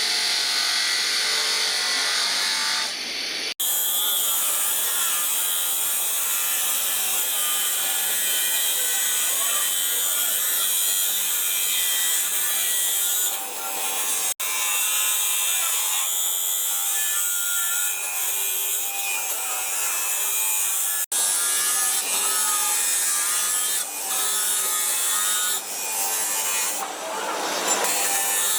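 Power tool running under load on a workpiece: a steady hissing grind with a wavering whine, broken off abruptly three times.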